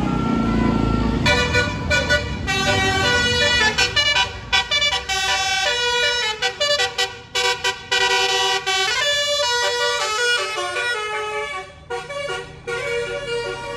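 A tour bus's basuri horn, a multi-tone melodic air horn, playing a quick tune of many short notes that step up and down, with brief gaps between phrases. It starts about a second in, after a low bus engine rumble.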